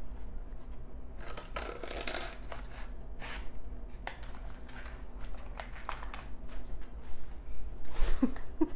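Cardboard pie box being handled: rustling and scraping as a deep-fried pastry is slid into it and the flap is folded shut, with scattered light clicks.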